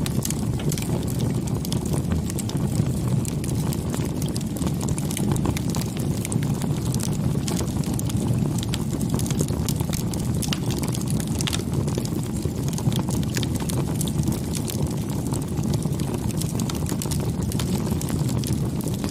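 Open wood fire burning steadily: a low rumble of flames under many small, sharp crackles and pops.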